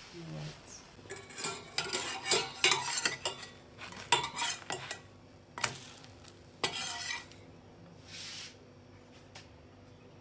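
Metal slotted spatula scraping and clinking against a stainless steel frying pan as a pancake is worked loose and turned, in a quick run of sharp scrapes and clinks, then a short hiss about eight seconds in.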